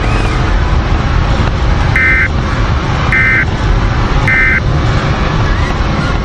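Emergency Alert System end-of-message signal: three short blips of SAME data tones, each about a third of a second, spaced about a second apart, over a loud, steady low rumbling noise.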